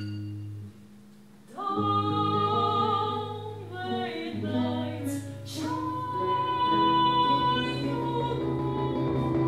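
Music: low sustained tones with a singing voice holding long notes over them, coming in about a second and a half in after a brief dip. A long, steady high note is held through the second half.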